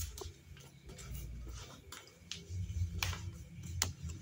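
Handling noise from a handheld phone being carried, a low uneven rumble, with about five sharp light clicks and taps, the strongest about three and four seconds in.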